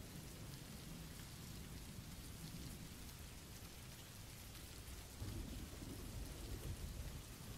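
Faint steady rain sound effect, with a low rumble of thunder swelling about five seconds in.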